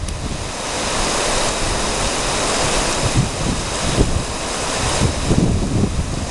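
Rushing river water, a steady hiss, with wind buffeting the microphone in irregular low rumbles.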